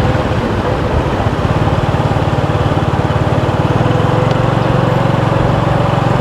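Motorbike engine running steadily at a constant speed while being ridden, with a fast even pulse and road and wind noise.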